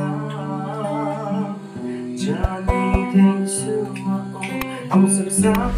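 Steel-string acoustic guitar played with finger-picked and strummed chords, with a man singing along.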